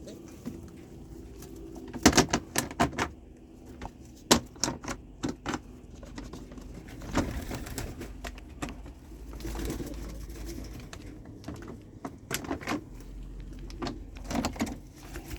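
Pigeons cooing steadily in a loft, with several bursts of sharp clicks and knocks, the loudest about two seconds in.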